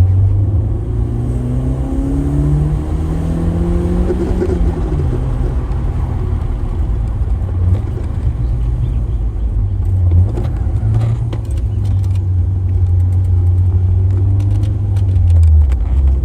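Car engine under acceleration, climbing in pitch for about four seconds, then dropping back and running steadily at a lower pitch while the car drives on.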